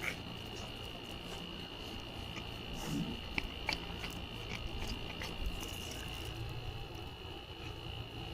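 Cats eating: faint, scattered small clicks of chewing and biting, over a steady high-pitched whine in the background.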